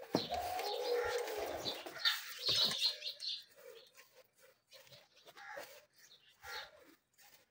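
Pigeons cooing with small birds chirping. A louder noise with a few low knocks fills the first two seconds.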